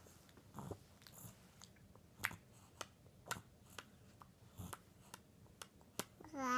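Baby's faint wet mouth clicks and smacks, scattered and irregular, as he mouths and chews on his hand. Near the end he breaks into a loud, high-pitched vocal sound.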